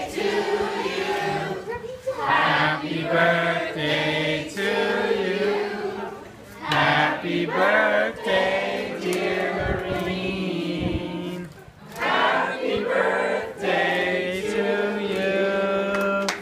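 A crowd of adults and children singing a song together, in phrases of held notes with two short breaths between them.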